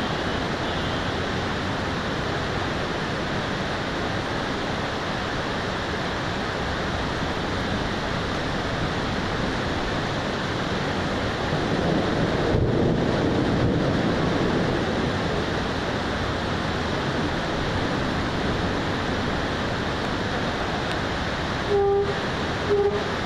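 Heavy thunderstorm rain and wind, a steady roar, swelling lower and louder for a few seconds about twelve seconds in. Two short beeps near the end.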